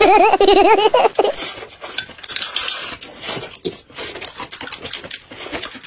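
A wavering hummed voice for about the first second, then table-eating sounds: chopsticks clicking against bowls and plates, with chewing and small rustles of food.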